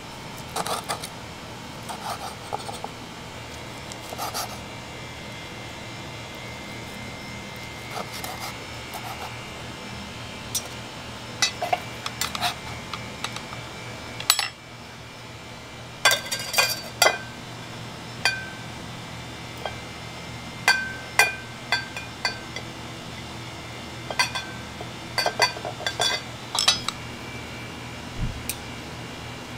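Chinese cleaver slicing cooked goat meat on a wooden chopping board. It makes irregular runs of sharp knocks on the board and short metallic clinks where the blade meets the metal skewer holding the meat.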